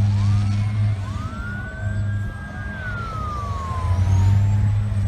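Emergency vehicle sirens wailing, their pitch rising, holding high, then slowly falling, over a steady low hum.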